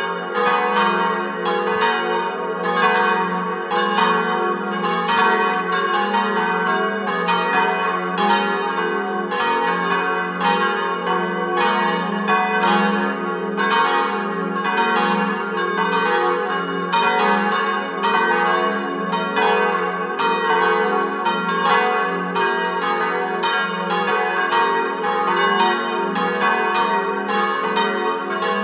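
Four church bells cast by Giovanni Colbacchini of Trento, tuned to a diatonic G-flat major scale, swinging together in full peal (the plenum). Their strikes overlap in a steady, continuous stream, roughly two a second, with many pitches ringing on.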